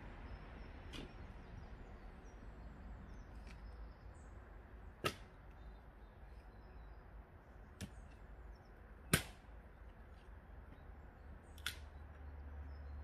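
Firewood logs knocking together as they are taken from a bulk bag and dropped into a crate: a few sharp wooden knocks several seconds apart, the loudest about nine seconds in, with fainter ones between.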